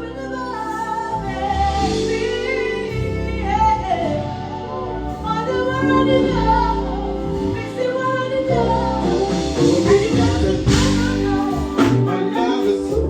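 A woman singing long, gliding held notes and runs over a live band's accompaniment.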